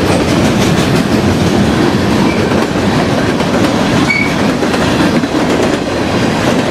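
CN freight train rolling past close by: a steady rumble and clatter of railcar wheels on the rails, with two brief faint high squeaks about two and four seconds in.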